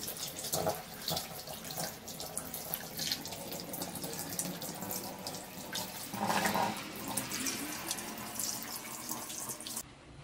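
Tap water running into a stainless steel sink and splashing over raw chicken pieces being rinsed by hand, with a louder splash about six seconds in. The water sound cuts off near the end.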